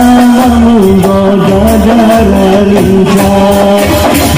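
Hadroh ensemble performing a sholawat: a man's voice holds long, drawn-out notes that step slowly between pitches, over a steady beat of rebana frame drums and a deep bass drum.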